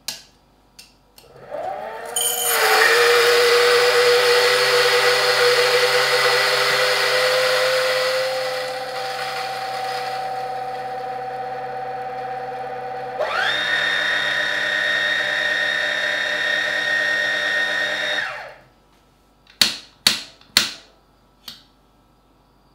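Option-O Lagom P100 coffee grinder with SSP Ultra Low Fines burrs spinning up and grinding espresso beans, a loud whirring grind with a rising motor tone at the start. The grind sound then turns steadier with a changed pitch, later jumps to a higher steady whine, and stops. A few sharp knocks follow near the end.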